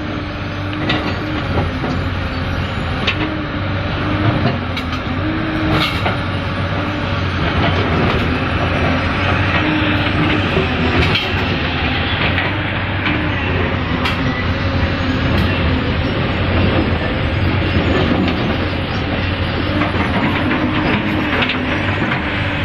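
Hyundai excavator's diesel engine running steadily at work, with scattered sharp knocks and clanks over it, a dozen or so across the stretch.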